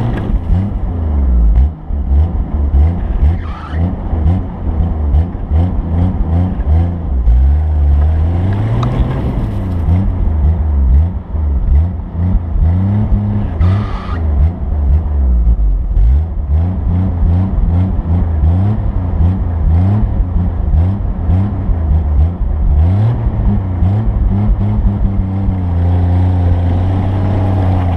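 A vehicle engine running loudly, revving up and down again and again, its pitch rising and falling throughout.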